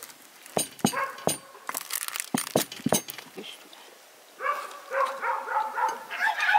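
Metal clicking and knocking against a glass baking dish as a knife and server cut and lift out portions of a coconut dessert. Then, about four and a half seconds in, a turkey gobbling in a rapid warbling run.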